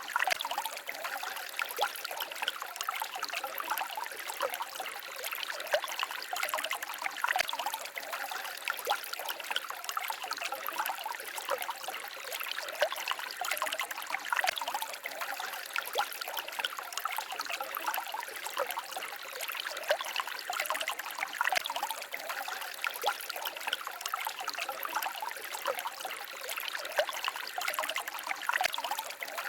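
Shallow forest stream babbling and trickling steadily, a bright splashy water sound with little low rumble.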